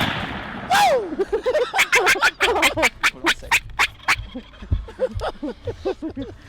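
Shotgun shot on turkeys about a second in, right after another shot. Then comes a fast run of sharp flapping strokes, about five a second for two seconds or so: downed gobblers flopping their wings. Short turkey calls are heard throughout.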